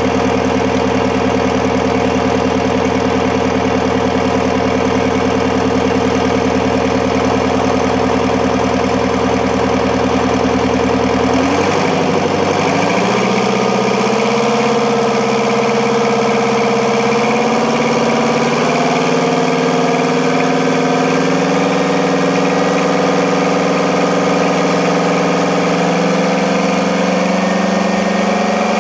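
Turbocharged Detroit Diesel V8 engine running steadily, then about eleven seconds in its note changes and climbs slowly as the revs rise.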